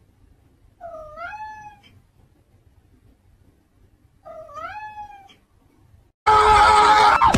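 Domestic cat meowing twice, about three seconds apart, each call about a second long and dipping then rising in pitch. Near the end, loud music cuts in suddenly.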